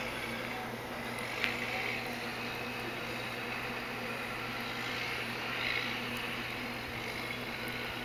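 Steady city background at night: a constant low machine hum under a soft hiss, with a short click about a second and a half in.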